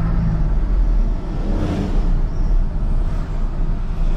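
A car being driven: steady low engine and road rumble heard from inside the cabin, with a faint swell of noise around the middle.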